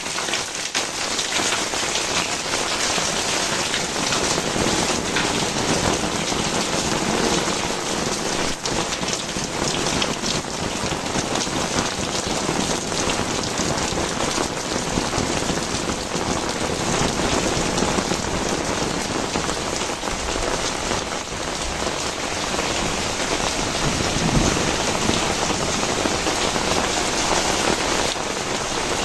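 Heavy rain falling steadily, drops hitting the ground and surfaces in a dense, even wash of sound.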